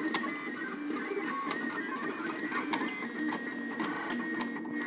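DIY 3D printer's stepper motors whining as the print head moves while printing, in short tones that jump in pitch with each change of move, with small clicks between them.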